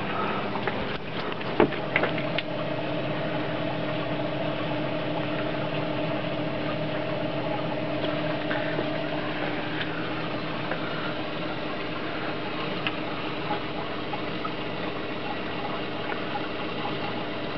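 A laminar-flow water jet and its pump running: a steady rush of water with a low, even hum underneath. A few sharp clicks sound in the first couple of seconds.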